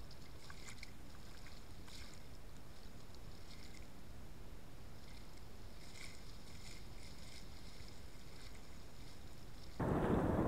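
Shallow surf swirling and fizzing around a camera held at the water's surface, with faint crackles of breaking foam. A little before the end it cuts suddenly to a much louder rush of waves.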